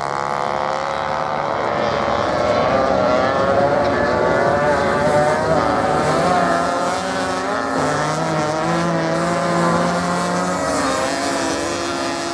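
Off-road racing motorcycle engines running hard, their pitch rising and falling as riders accelerate and shift. The sound is loudest a few seconds in, then eases toward the end as several engines overlap.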